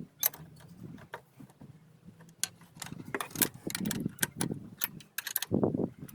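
Irregular metallic clicks and clinks of hand work on a car's power steering parts, thickest in the second half, with a few heavier, duller knocks near the end.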